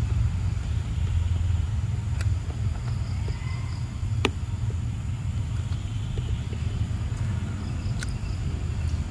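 Steady low rumble of wind buffeting the microphone outdoors, with a few sharp clicks, the clearest about four seconds in.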